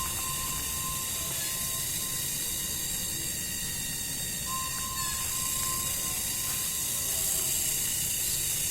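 Steady, high-pitched outdoor chirring and hiss, with a thin whistle-like tone that sounds twice for about two seconds each time.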